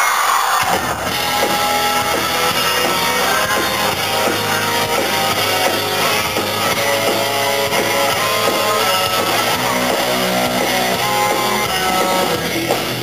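Live rock band starting a song: electric guitars and a drum kit kick in under a second in and play loud and steady, over the last of the crowd's cheering.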